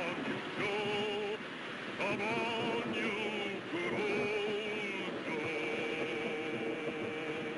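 Dramatic orchestral film-score music: several sustained notes with a strong vibrato, moving to new chords every second or so, over a steady rushing noise of storm wind and rough water.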